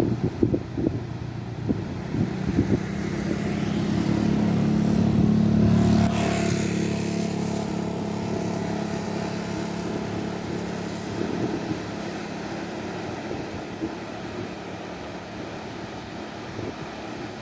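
A fishing boat's engine running as it passes close by, growing louder to a peak about six seconds in and then fading away. Low buffeting thumps, like wind on the microphone, come near the start.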